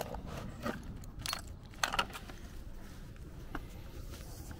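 Small keys jingling and clicking against a locking hitch pin as a key is fitted into its keyhole: a handful of separate, irregular metal clinks.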